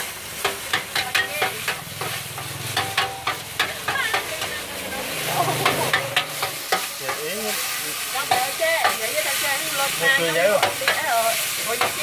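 Metal spatula scraping and tapping repeatedly against a wide metal pan as rice pin noodles and bean sprouts are stir-fried, over a steady sizzle.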